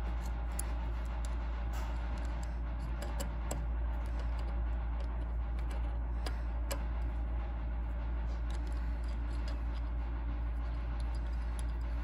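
Faint scattered metallic clicks and ticks of a 7/16-20 tap turned with an adjustable wrench as it is worked into rusty seat-belt bolt-hole threads, over a steady low hum.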